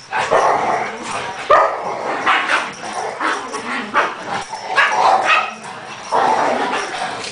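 A pit bull and a papillon playing rough together, with repeated loud dog barks and vocal calls coming in short bursts about once a second.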